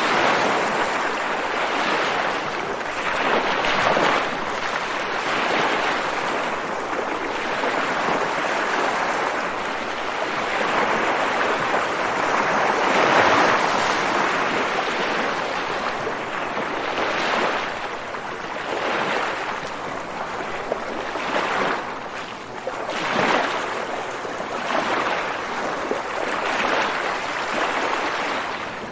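Water waves washing in a continuous rush that swells and eases every second or few seconds.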